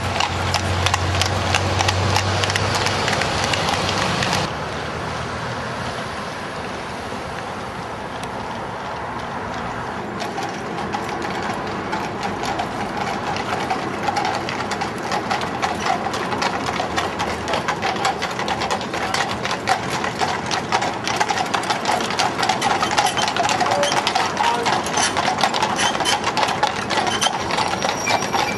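Horses' hooves clip-clopping on a tarmac road, with the rattle of horse-drawn carriage wheels rolling.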